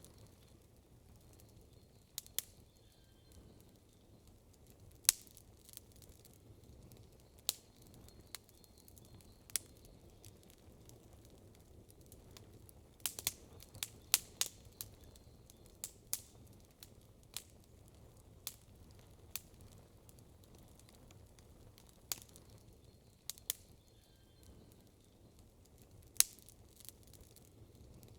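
Wood campfire crackling, with sharp pops at irregular intervals and a quick run of several pops about halfway through.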